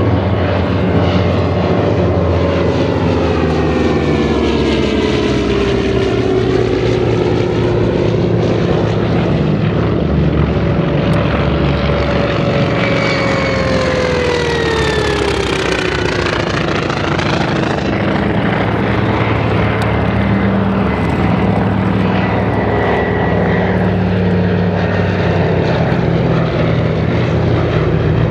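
Vintage radial-engined Navy warplanes flying past in turn, a steady loud engine and propeller drone. The pitch drops in a long slide as a plane passes overhead, twice.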